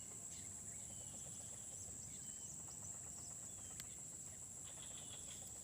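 Insects calling in a steady high-pitched drone, with a few faint short bird chirps over it.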